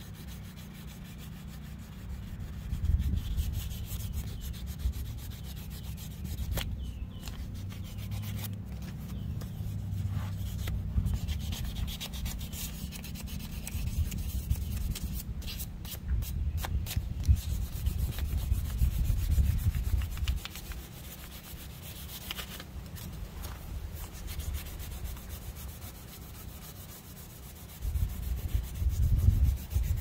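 Hand sanding on the metal bell of an old steam whistle: an abrasive sheet rubbed back and forth in continuous uneven strokes, louder for a stretch about halfway through and again near the end.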